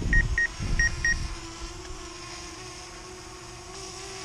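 Drone remote controller sounding a rapid warning beep, short high pips about four a second that stop about a second in: the alert for a drone battery too cold to fly. Wind rumbles on the microphone at first, then a steady faint hum remains.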